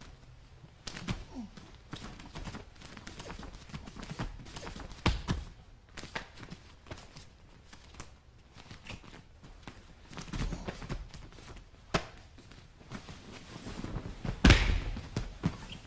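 Bare feet and bodies shuffling and thudding on a padded training mat, with gi fabric rustling, as two people grapple through a headlock defence; a louder thump comes near the end.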